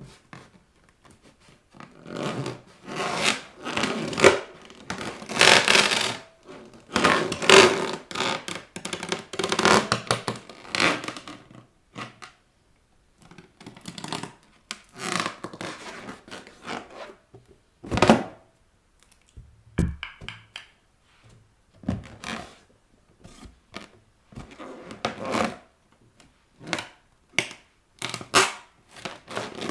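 Inflated rubber balloons being pressed and rubbed under bare feet, in long stretches of rubbing noise during the first third, then a few sharp bangs as balloons pop, the loudest about halfway through.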